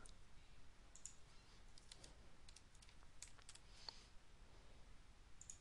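Faint, scattered clicks of a computer keyboard and mouse: a dozen or so short keystrokes and clicks spread irregularly over a quiet background.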